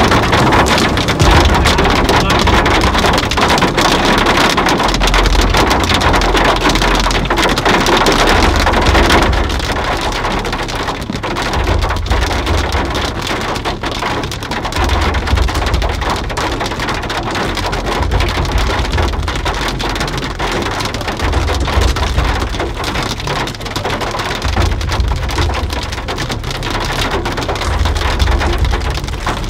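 Hail and heavy rain pelting a vehicle's roof and windshield, heard from inside the cab as a dense, loud clatter of many small strikes. It is heaviest for the first nine seconds or so, then eases somewhat.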